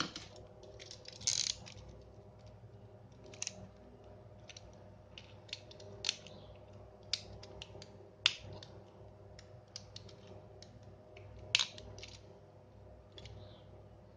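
Irregular sharp clicks and short scrapes of small hard parts being handled, a dozen or so spread over the stretch with the loudest a little past a second in, around eight seconds and near twelve seconds, over a faint steady hum.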